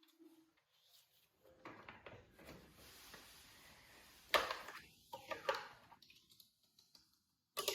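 Scattered plastic clicks and knocks from handling a robot vacuum cleaner's parts while a brush is fitted back in place, the loudest knock about halfway through and a sharp click near the end.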